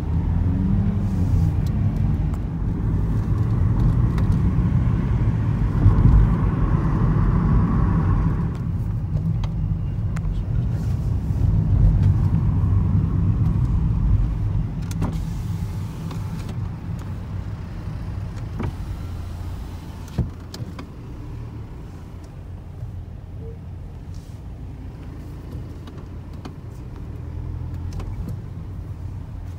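A vehicle running with a steady low rumble, louder through the first half and easing off after, with one sharp click about two-thirds of the way through.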